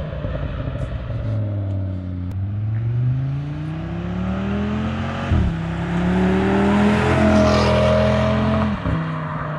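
Audi RS3's turbocharged five-cylinder engine accelerating through its new aftermarket exhaust: the pitch climbs, drops at an upshift about five seconds in, climbs again and drops at a second upshift near the end.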